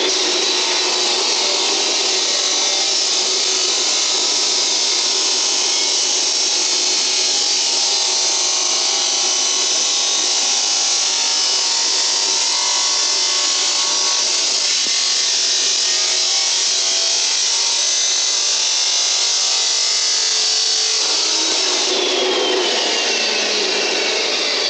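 Power saw cutting through a pipe, running steadily under load. Near the end a thin whine slowly falls in pitch.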